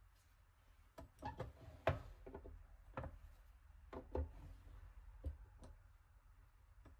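Irregular light knocks and clicks of kitchen utensils and dishes being handled during cooking, about a dozen taps, the sharpest about two, three and four seconds in.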